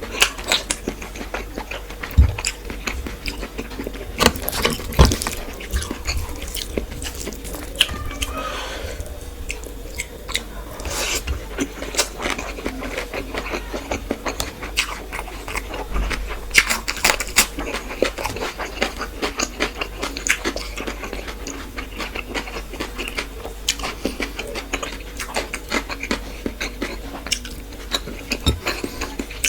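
Close-miked chewing and wet mouth smacks of someone eating fish with rice and curry, with many irregular short clicks throughout.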